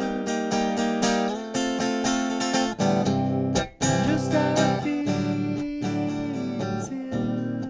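Guitar playing an instrumental passage of a song, with held notes and a sliding, bent note. It breaks off briefly about three and a half seconds in.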